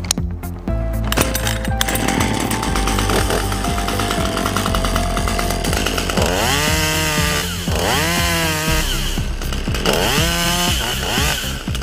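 Husqvarna T540XP II two-stroke top-handle chainsaw running, revved up three times in the second half, its pitch rising with each rev, over background music.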